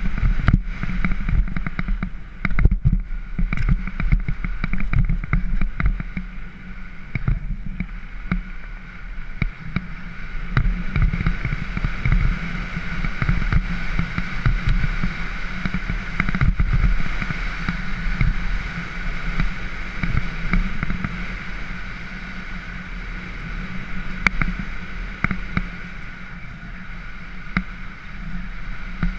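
Mountain bike riding down a dirt trail: tyres rumbling over the ground and wind buffeting the microphone, with frequent knocks and rattles from the bike over bumps.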